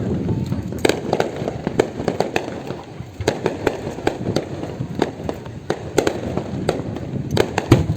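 Aerial fireworks display: a dense, irregular string of sharp bangs and crackles over a continuous low rumble.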